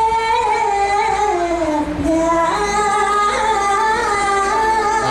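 A high-pitched solo voice singing into a microphone, holding long notes that slide and waver in pitch.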